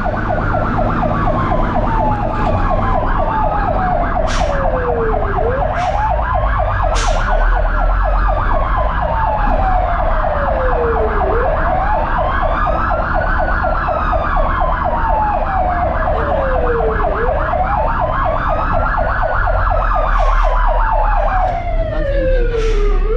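Fire truck sirens heard from inside the cab. A slow wail sweeps down and back up about every six seconds, over a second siren's rapid warbling pulse that cuts off near the end. The truck's engine rumbles underneath.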